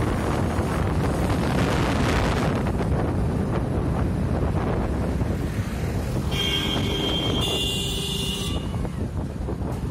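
Wind buffeting the microphone over the rumble of a vehicle moving along a busy road. About six seconds in, a vehicle horn sounds with a steady tone for roughly two seconds.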